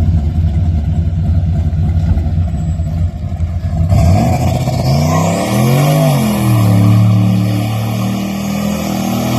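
Turbocharged 6.0-litre Chevy V8 truck engine running at high revs. About four seconds in the sound changes abruptly: the pitch climbs and drops once, then holds steady.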